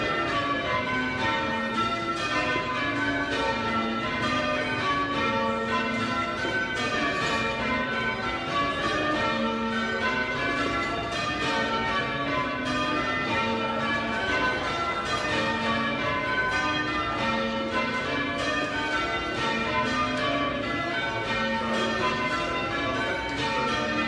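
A ring of eight church bells, mostly cast by John Taylor and Co with two trebles from the Whitechapel Bell Foundry, in full-circle change ringing. The bells strike one after another in a steady, continuous sequence, heard from the ringing floor inside the church.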